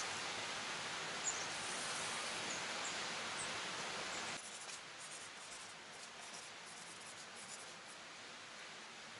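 Faint scratching of a pen drawing on paper over a steady background hiss. The hiss drops abruptly about four seconds in, leaving the pen strokes over quieter room tone.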